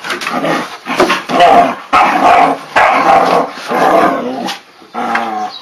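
Great Pyrenees puppies barking and growling at each other in play, in a run of loud bursts about a second long, with a few sharp knocks among them.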